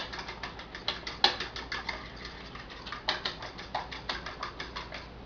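Two eggs being beaten in a white bowl by hand, the utensil clicking rapidly against the bowl's side at about six strokes a second.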